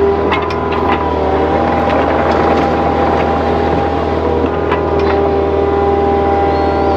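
Earthmoving machine's engine running steadily under load, with a whine that shifts pitch a couple of times and occasional sharp clanks.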